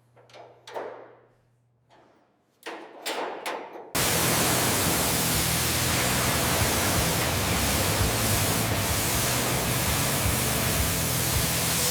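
A few faint taps and scrapes, then, about four seconds in, a loud, steady hiss with a low hum underneath starts suddenly.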